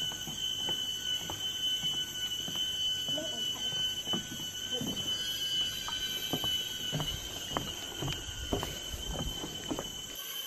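Tropical forest insects droning in a steady high-pitched whine, with footsteps knocking on a wooden boardwalk about twice a second.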